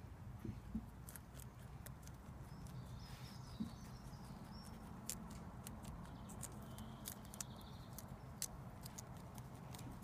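Lop rabbits chewing dandelion stems and flowers: faint, irregular crisp crunching clicks over a low background rumble.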